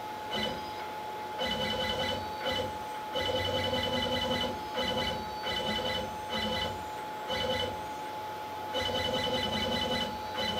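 Onefinity CNC router's stepper motors whining as the X axis is jogged in a string of short moves, about a dozen brief runs that start and stop abruptly, over a steady faint tone.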